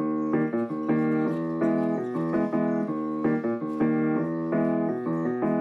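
Background music played on a keyboard instrument: a quick, steady run of piano-like notes and chords.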